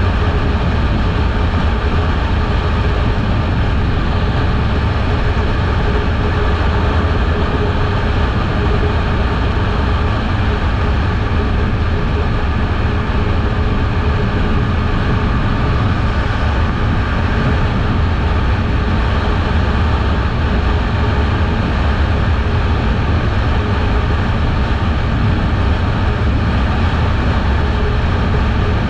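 A Kawasaki Eliminator 500's parallel-twin engine runs at a steady speed under a heavy, even rumble of wind.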